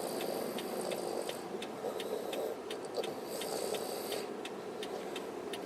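Toddler snoring, loud, with two rasping breaths, one near the start and one about three and a half seconds in, over car cabin noise and a steady ticking about three times a second.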